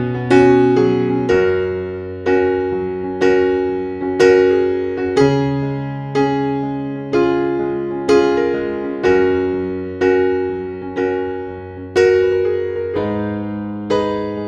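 Background music played on electric piano: a slow melody of struck notes, about one a second, each fading away, over held bass notes.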